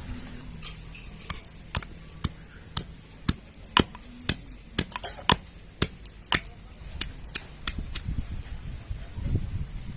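A pestle pounding garlic in a mortar: a run of sharp knocks at about two a second, stopping about eight seconds in.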